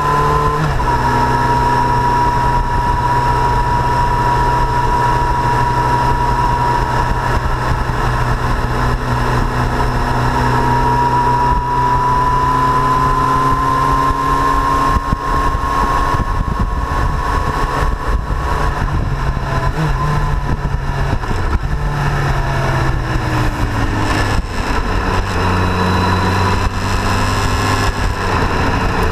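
Yamaha FZ8 Fazer's inline-four engine running at road speed, with wind rush over the fairing. The engine note drops shortly after the start and shifts pitch a few times in the second half.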